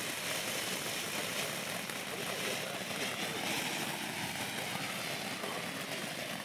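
Blackboxx Nova ground fountain firework spraying sparks with a steady, even rushing hiss.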